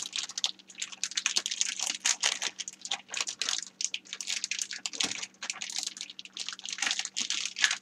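Plastic zip-top bag crinkling and crackling irregularly as hands squish and knead raw chicken strips and marinade inside it.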